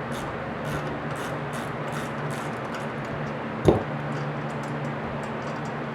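Ratchet and 19mm sockets loosening the axle nuts on a Razor MX dirt bike's rear wheel: a run of short metallic ratchet clicks, with a single knock about two-thirds of the way through, over a steady low hum.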